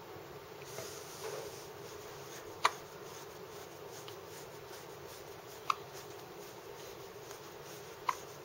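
Hiccups: three short, sharp hiccups, about three seconds and then two and a half seconds apart.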